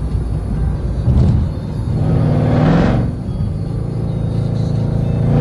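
Jeep Grand Cherokee Trackhawk's supercharged 6.2-litre Hemi V8 through a Gthaus valved cat-back exhaust, heard from inside the cabin: a steady low drone while cruising, with a brief rise in engine pitch about two seconds in as it picks up speed, and another starting near the end.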